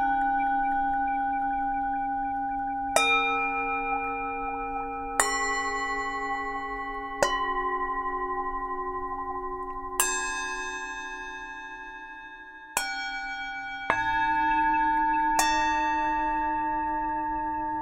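Tibetan singing bowls struck one after another, seven strikes about two to three seconds apart. Each strike gives a bright attack and then a long ringing tone with a slight waver, and the pitch changes from strike to strike.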